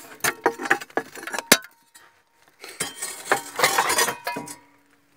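Hard clinks and knocks of rock and loose stone being moved in the dig pit, in two spells: a quick run of sharp clicks in the first second and a half, then more clinking and scraping from about three seconds in.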